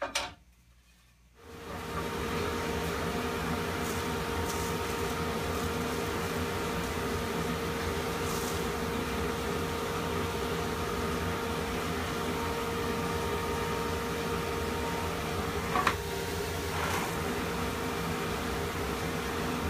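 Workshop dust collector switched on about a second and a half in, then running steadily with an even hum. A couple of light knocks near the end.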